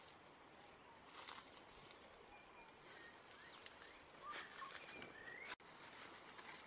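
Quiet forest ambience: a few faint bird chirps and short whistles, mostly in the second half, over the rustle of dry leaves underfoot.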